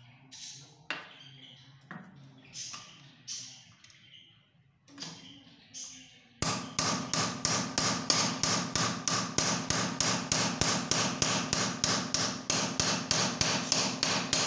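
A hammer striking the end of a screwdriver whose tip is set in a brass mixer-tap body. After a few scattered light clicks, the strikes start about six seconds in as rapid, even blows, about three a second, with a metallic ring.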